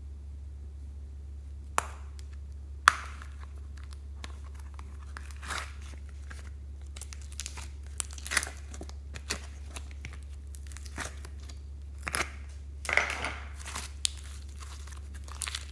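Hands handling plastic containers and slime: two sharp plastic clicks about two and three seconds in, the second the loudest, then irregular crinkling, crackling and squishing as clay and slime are pressed and kneaded together, over a steady low hum.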